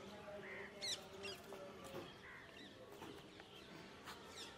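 Faint, high-pitched animal chirps and squeaks over a quiet background, one clearer chirp about a second in.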